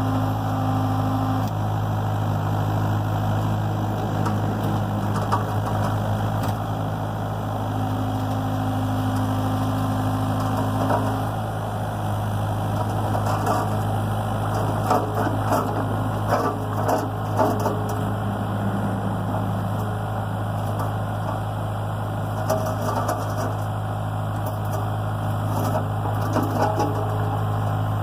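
Excavator's diesel engine running steadily under load, a higher whine coming in twice over it, with repeated clanks and knocks from the machine as it works, thickest in the middle and near the end.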